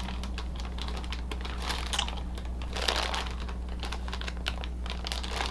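Clear plastic bags of model-kit parts crinkling, with many light clicks of plastic runners knocking together as they are handled. Soft crinkling swells about two and three seconds in.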